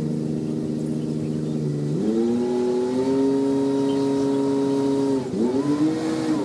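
Large diesel engine of a Liebherr mobile crane working a lift, changing revs: it runs low at first, rises to a higher steady pitch about two seconds in, dips sharply near the end and climbs again.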